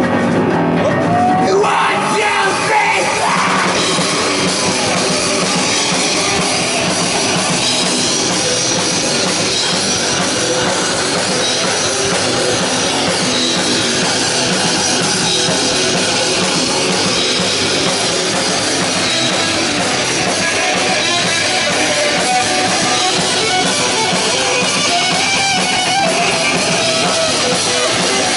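Live rock band playing loudly and without a break: electric guitars, bass guitar and drum kit.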